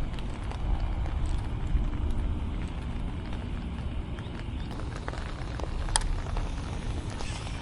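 Wind buffeting the microphone in a steady low rumble, with scattered small clicks and one sharper click about six seconds in.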